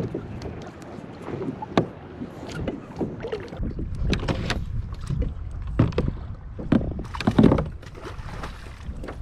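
Water washing against a fishing kayak's hull, with wind rumbling on the microphone from a few seconds in and irregular knocks and bumps of gear on the boat. The loudest thumps come about six to seven and a half seconds in.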